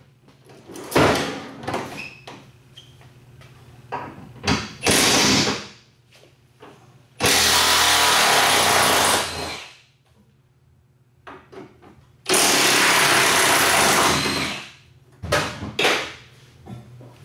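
Milwaukee cordless impact wrench hammering out seat-mounting bolts that would not budge with a breaker bar: a few short bursts, then two long runs of about two seconds each, with clanks of metal between them.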